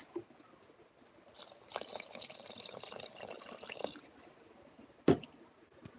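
Water being poured and stirred into pancake batter in a bowl with a wooden spoon, a wet sloshing stretch of about two and a half seconds. A single sharp knock about five seconds in.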